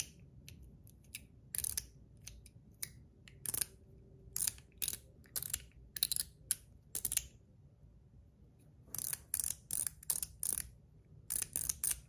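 Metal Toys DZ Top D fidget toys, one zirconium and one stainless steel, worked in the hands: short runs of sharp metal clicks as the parts pivot and snap, with a pause of about a second past the middle.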